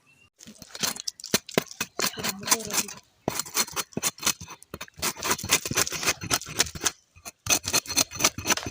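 A blade cutting goat intestine in quick strokes: runs of sharp clicks and snips, pausing briefly twice.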